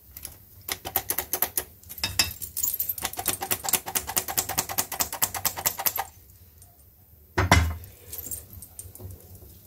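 Stainless steel hand flour sifter clicking rapidly and evenly as it is worked to sift flour into cake batter. It stops about six seconds in, followed by a single louder knock and a few faint clicks as a whisk goes into the bowl.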